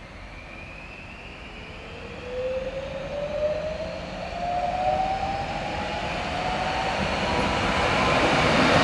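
Passenger multiple-unit train approaching, its running noise growing steadily louder, with a thin whine that climbs slowly in pitch over it.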